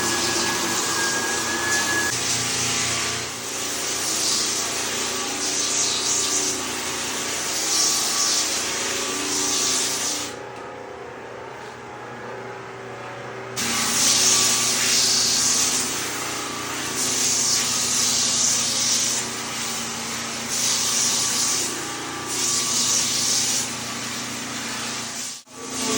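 Floor sanding machine running on a parquet floor. Its sanding noise swells and fades every second or two and drops back to a lower hum for a few seconds midway.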